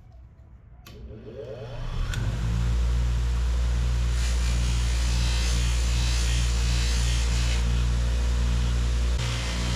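Electric power sander switched on with a click, spinning up over about a second, then running steadily with a low hum.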